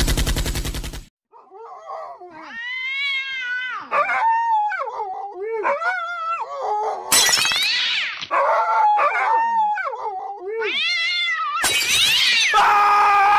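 Drawn-out animal yowls that waver and slide up and down in pitch, broken by two short harsh noisy bursts. A fast, even rattle opens the sound, cuts off after about a second, and starts again just before the end.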